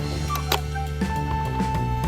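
Background music with held melody notes over a bass line, and one sharp click about a quarter of the way in.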